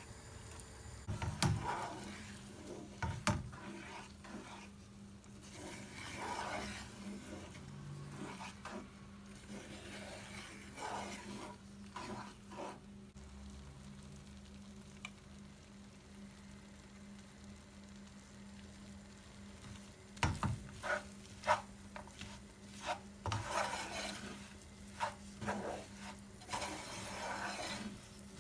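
A utensil stirring and scraping in a pan, with scattered sharp clinks and scrapes, heaviest about a second in and again from about two-thirds of the way through.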